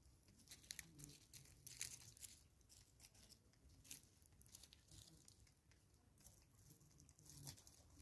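Faint, irregular sharp ticks and crunches of a francolin pecking seed off a wooden tree stump, a few ticks louder than the rest.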